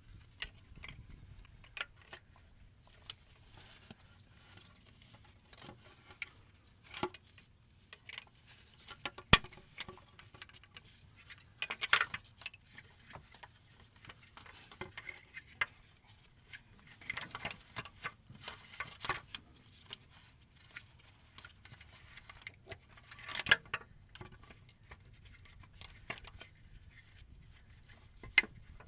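Metal tools and parts clinking and knocking irregularly while working on a truck engine, with a few louder knocks.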